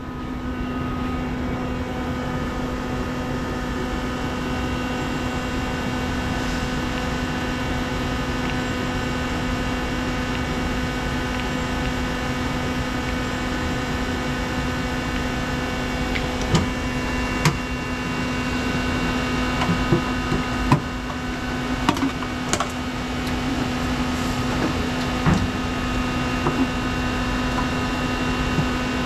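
Electric machinery running with a steady hum made of several steady tones. It fades in at the start, and scattered sharp clicks and knocks come over it from about halfway.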